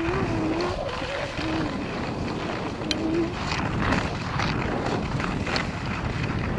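Wind rushing over an action camera's microphone while skiing down a groomed piste at about 20 km/h, mixed with the hiss and scrape of skis on the snow. A short wavering hum-like tone comes in the first second and again briefly about 1.5 and 3 seconds in.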